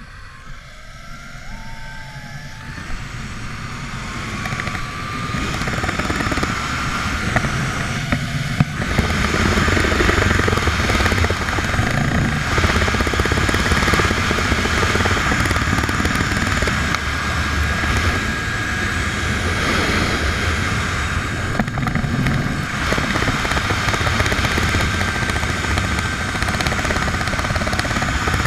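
Zipline trolley running down a long steel cable: the pulley whine rises in pitch over the first several seconds as it picks up speed, then holds steady. Loud wind rushes over the microphone, building with the speed.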